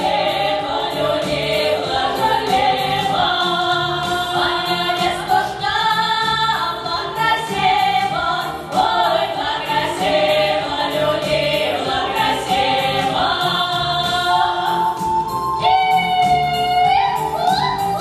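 Women's folk ensemble singing a Russian folk-style song in harmony into microphones, over amplified accompaniment with a steady beat.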